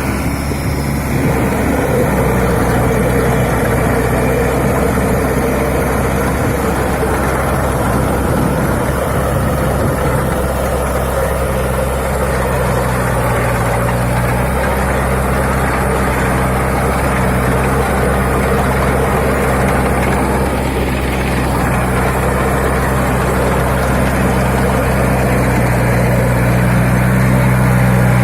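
Farm tractor engine running steadily at a low, even speed, growing a little louder near the end.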